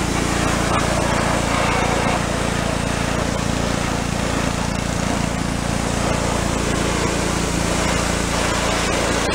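Pressure washer running steadily, a motor drone under the hiss of the water jet spraying onto a motorcycle's engine and fuel tank.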